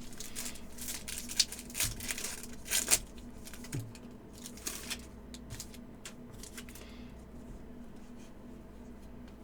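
Trading card packs being opened by hand: wrappers tearing and crinkling and cards being handled, a run of sharp crackles for about the first seven seconds, then only faint handling.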